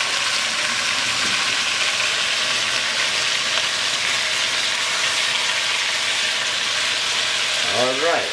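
Rabbit pieces frying in hot olive oil in an enameled cast-iron pot, a steady sizzle as the meat browns.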